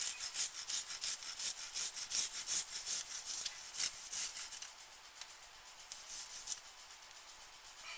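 A garlic clove being grated on a metal rasp zester: quick back-and-forth scraping strokes, about four a second, easing off about five seconds in, with a few more strokes a second later.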